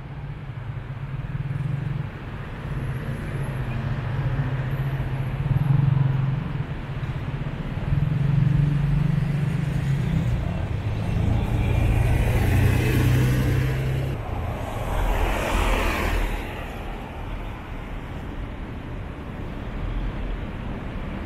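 City street traffic: engines running with a steady low hum, and vehicles passing close by about twelve and fifteen seconds in.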